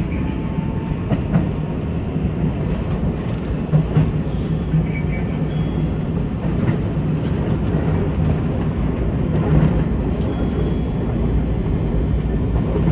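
Electric commuter train running, heard from inside the car: a steady low rumble of wheels on rails with a few sharp clicks.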